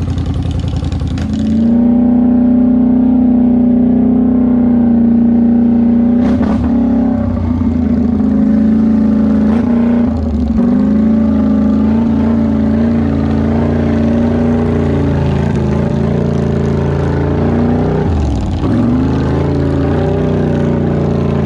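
Polaris Sportsman 850 High Lifter ATV engine running at steady riding revs while it crosses muddy water, with a brief dip in revs near the end.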